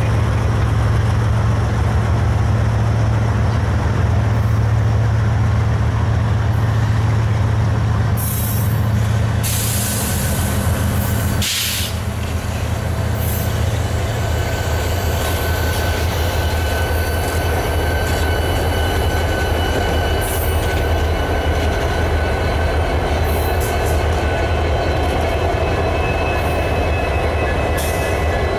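A string of BNSF diesel-electric freight locomotives passing close by, their engines making a loud, steady low drone whose pitch drops about a third of the way through as a different unit goes by. A few short bursts of hiss come around the same point, and a thin, steady high squeal from the wheels sets in about halfway through as the freight cars follow.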